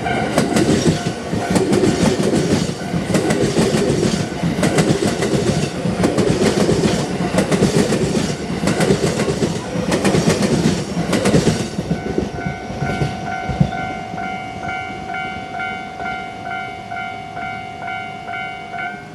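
An electric train passes over a railway level crossing, its wheels clattering over the rail joints, while the crossing's warning bell rings. About twelve seconds in the train has gone by and the bell rings on alone until it stops near the end.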